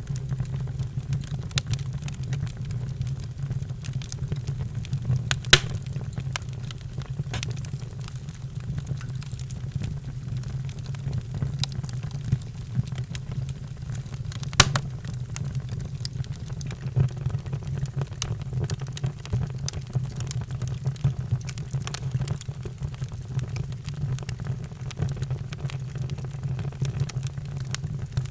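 Fireplace fire crackling with scattered sharp pops, two of them louder about five and a half and fourteen and a half seconds in, over a steady low rumble.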